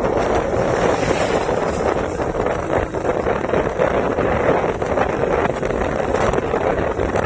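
Wind buffeting the phone's microphone while riding a motorbike: a loud, steady, fluttering rush of air with vehicle and road noise mixed under it.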